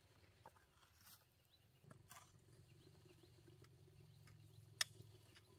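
Near silence with faint scrapes and ticks of hand hoes working dry soil, one sharper click just before the end, and a faint low hum from about two seconds in.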